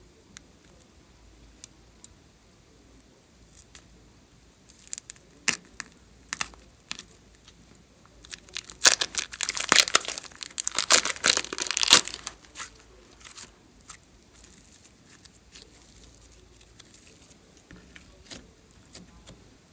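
Thin plastic piping bag crinkling and tearing as it is squeezed and peeled off a lump of green clay, a dense crackle for about four seconds in the middle, with scattered small clicks and taps before and after.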